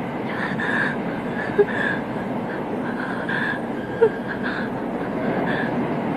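Steady running noise of a train heard from inside the carriage, with scattered brief higher squeaks and two sharp clicks.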